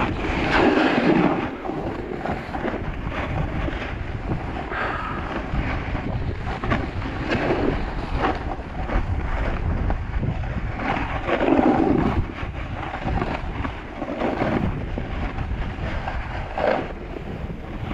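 Wind rushing over the microphone of a skier's action camera, with skis scraping on packed snow, swelling in surges with the turns.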